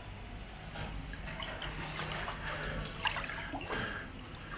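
Pool water lapping, dripping and trickling close by as someone wades through a swimming pool.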